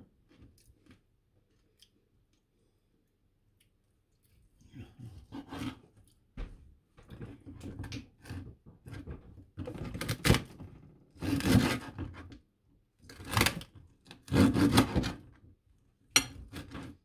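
A knife cutting through the crackling skin of roasted pork belly on a wooden board: a string of crisp crunches that start about four seconds in and grow louder, the strongest in the middle stretch.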